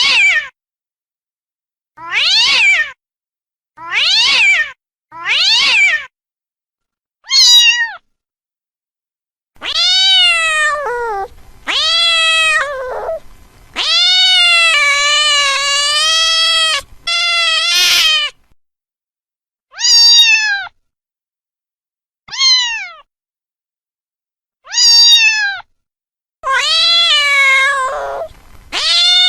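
Domestic cat meowing over and over: a few short meows, then longer drawn-out meows, one held for about three seconds, each with silence between.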